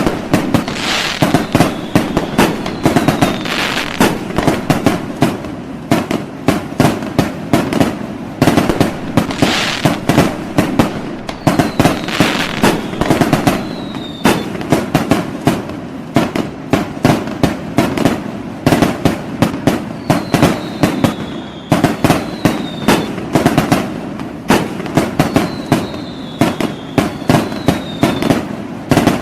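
Fireworks and firecrackers going off without pause, a dense run of loud bangs and crackling. Short falling whistles, in pairs, cut through it several times.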